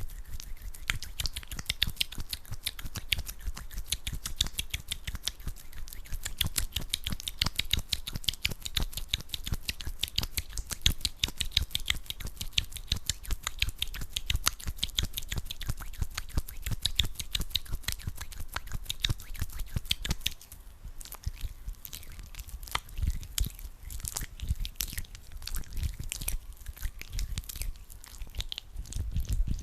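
Hands rubbing sticky aloe vera gel together, giving a dense, fast run of wet clicks and crackles. The clicking turns sparser and more uneven about two-thirds of the way through.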